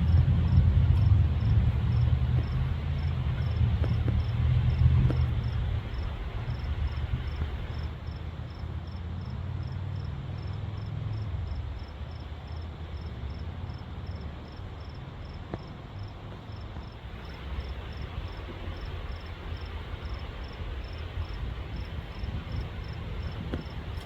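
A cricket chirping steadily, about two chirps a second, over a low rumble that is loudest for the first several seconds and then fades.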